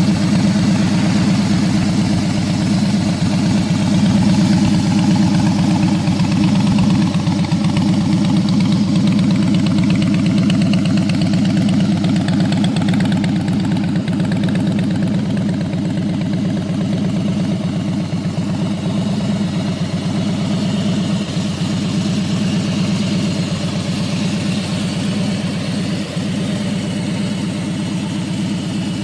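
Harley-Davidson Fat Boy's air-cooled V-twin idling steadily, a rapid even train of exhaust pulses with no revving.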